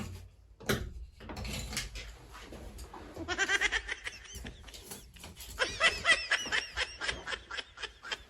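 A person laughing in quick, high-pitched bursts of giggling in two runs, after a breathy hiss in the first couple of seconds.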